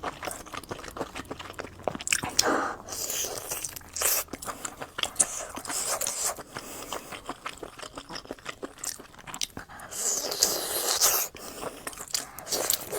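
Close-miked biting and chewing of roller-grilled sausages: a run of crisp snaps and wet chewing sounds, irregular throughout, with a louder stretch about ten seconds in.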